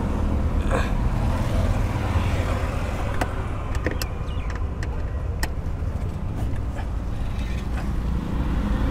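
A screwdriver working a screw through a plastic dashboard trim panel: a few sharp clicks of metal and plastic between about three and five and a half seconds in, over a steady low rumble.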